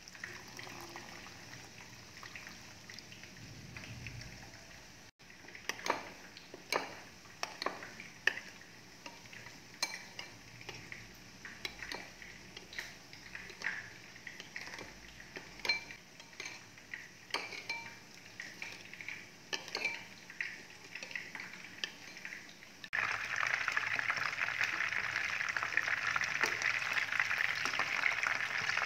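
Water poured into a ceramic bowl of sauce, then a metal spoon stirring the sauce and clinking against the bowl about once or twice a second. About three-quarters of the way through, chicken drumsticks frying in oil in a pan take over with a louder, steady sizzle.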